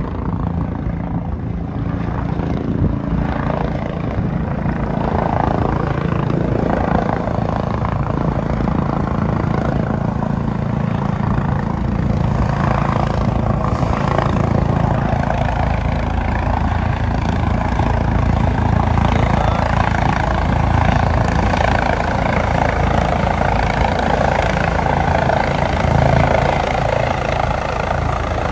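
Air ambulance helicopter approaching to land, its rotor and engine noise steady and getting gradually louder as it closes in.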